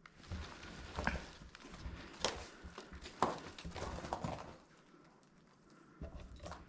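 Faint, slow footsteps and scuffs on a hard floor, with a few knocks about a second apart.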